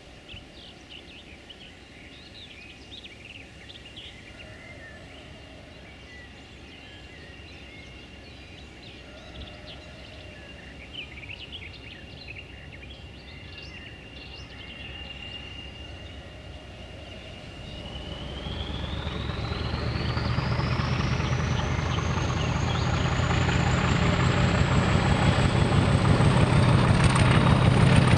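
Diesel locomotive working towards the listener under power. Its turbocharger whistle holds a steady high note, then climbs steeply in pitch from about two-thirds in as the engine is opened up, while the deep engine note swells and grows much louder. Birds chirp in the first half.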